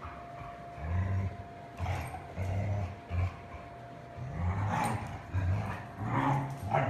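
Huskies play-growling while they wrestle: a run of short, low growls in quick, irregular succession.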